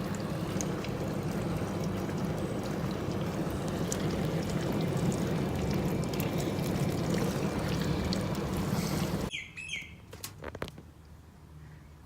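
Miele dishwasher's wash pump running with water rushing and splashing inside, a steady hum under it. It cuts off suddenly about nine seconds in, followed by a few short squeaks and clicks.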